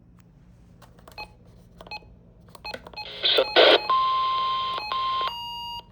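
Emergency Alert System alert signal opening a flash flood warning: a few faint clicks, then a short harsh data burst, then a steady high beep that breaks briefly and shifts slightly lower near the end before cutting off.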